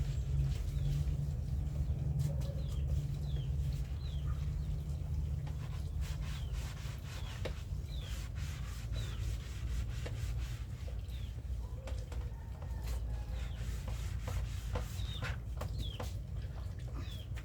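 Steady rubbing, scrubbing noise from cleaning, with scattered short, falling chirps of small birds and a few light clicks, more of them in the second half.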